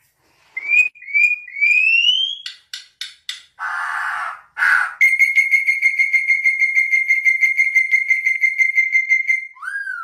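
Venezuelan troupial singing. It gives a few rising whistled notes and sharp clicks, then a harsh rasping call, then one long, steady, pulsing whistle that ends in a short swooping note.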